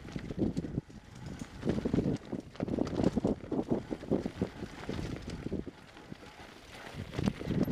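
Wind rushing over a helmet-mounted camera's microphone as a mountain bike descends a rough gravel and rock trail at speed, with tyres crunching and the bike rattling in many short clicks. The rush comes in uneven surges and eases for a moment around six seconds in.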